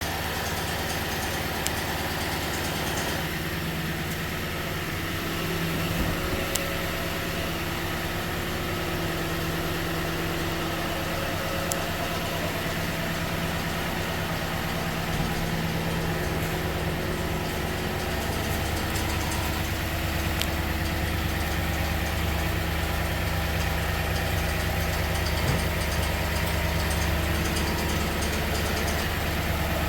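2015 Toyota Sequoia's 5.7-litre V8 idling during morning warm-up, with a steady rapid clicking over the engine hum, which the owner wonders may come from a timing tensioner.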